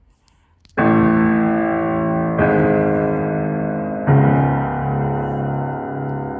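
C. Bechstein grand piano: three full chords struck about a second and a half apart, each left ringing and slowly dying away, the third with a strong bass note. A faint click just before the first chord.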